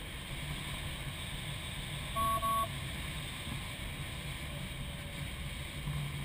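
Steady rush of airflow over the canopy of a Single Astir 77 glider in flight, with two short electronic beeps a little over two seconds in.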